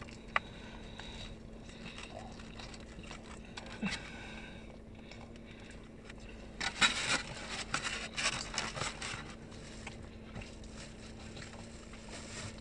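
Faint crackling and scraping from eating a taco and handling its takeout tray, busiest for a few seconds past the middle, over a faint steady hum.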